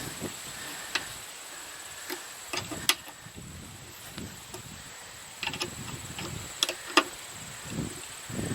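Scattered sharp metallic clicks and taps of hand tools and bolts as a motorcycle seat is bolted back on, with wind buffeting the microphone.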